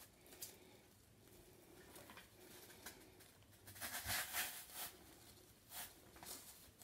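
Faint rustling of artificial silk flowers and leaves as a rose stem is worked into the arrangement, loudest about four seconds in, with a few soft clicks.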